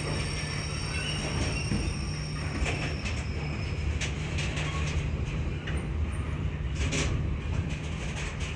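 Loaded container wagons of a freight train rolling past close by, with a steady low rumble from the wheels on the rails. The wheels knock sharply over rail joints several times, and a thin high whine fades out in the first few seconds.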